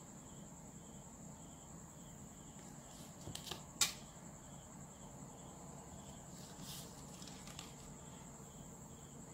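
Plastic ruler and pen handled on paper during pattern drafting: quiet handling with a few small clicks and a light tap about four seconds in, and a short rustle near seven seconds. A faint steady high-pitched whine runs underneath.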